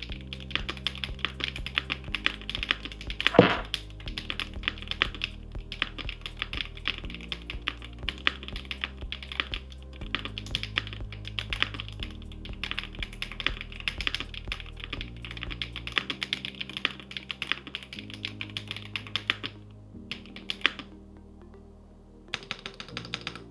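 Fast continuous typing on an ROG Azoth Extreme mechanical keyboard with Kailh BCP switches and a carbon fibre plate: muted, slightly hollow keystrokes, with one noticeably louder stroke a few seconds in. The typing thins to a few strokes about twenty seconds in and then stops, leaving background music with steady low notes.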